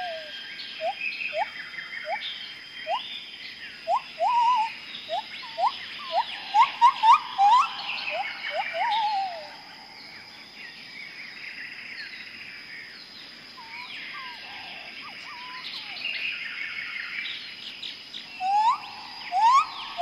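Tropical rainforest bird chorus: one bird repeats short upward-sliding whistles in a fast series through the first half, falls quiet around the middle and starts again near the end, over many overlapping higher chirps and a steady high-pitched buzz.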